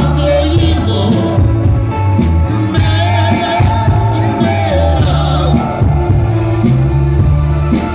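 Live Romani band playing through a PA: a man singing over keyboard, electric guitar and drums, with a heavy bass line.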